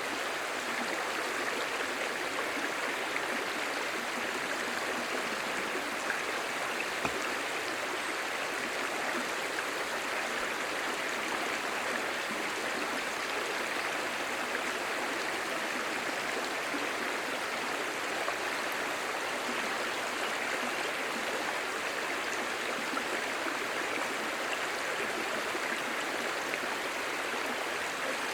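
A shallow, clear stream babbling, with a steady, even rush of flowing water.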